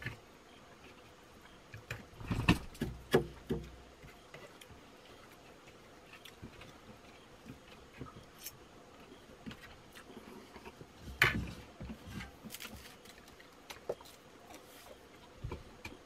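Scattered small knocks and clinks in a quiet small room: a person handling a glass and moving about at a table. The loudest are about two and a half seconds in and again about eleven seconds in.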